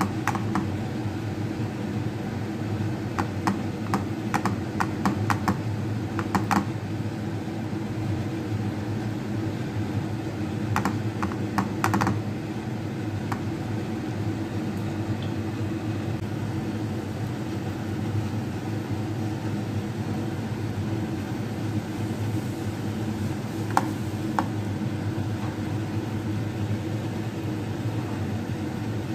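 Light tapping in quick clusters as a ball of wet flour dough is dabbed against a hot nonstick frying pan to build up a lumpia wrapper, over a steady low mechanical hum.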